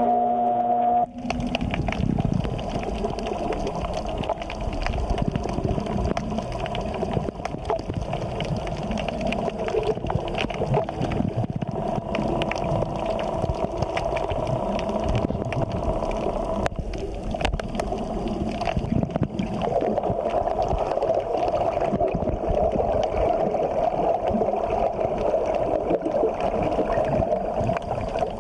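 Underwater water noise picked up by a submerged camera: a steady, bubbly gurgling.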